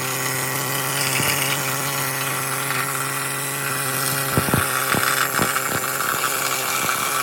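A power tool running steadily with a constant hum, with a few sharp clicks between about four and five and a half seconds in.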